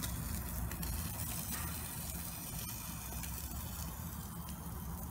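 A whole trout sizzling on a hot grill: a steady hiss with faint crackles over a low rumble.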